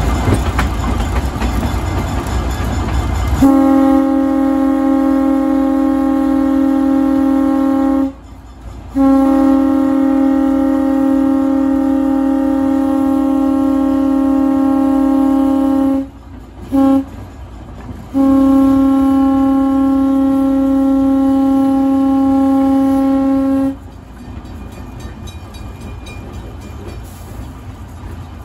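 Vulcan 65-ton diesel switcher's horn, a single steady pitch, blowing the grade-crossing signal: two long blasts, a short one and a final long one. The diesel engine runs underneath before the horn starts, a few seconds in, and again after it stops near the end.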